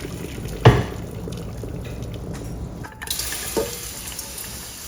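Pasta cooking water pouring out of the pot into a colander in the sink, with a loud knock about a second in and a fainter one near the end.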